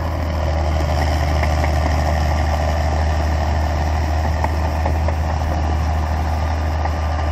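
Engine of a tracked Ford tractor running steadily with a deep, constant hum while it drives a rear-mounted rotary tiller through wet paddy mud.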